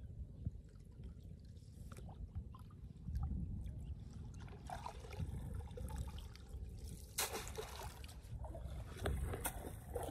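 Hands and a net bag sloshing and splashing in shallow muddy water, with scattered small drips and several louder splashes, the biggest about seven seconds in.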